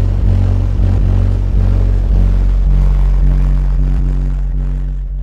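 Very loud bass music played through a car's bank of eight Sundown Zv.4 15-inch subwoofers, heard from outside at the windshield. The sound is dominated by deep held bass notes that pulse with the beat.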